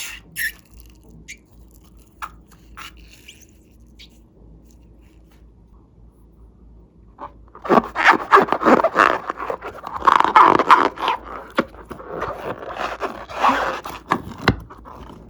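Slime being squeezed and kneaded by hand: a few light clicks, then about seven seconds of dense wet crackling and popping.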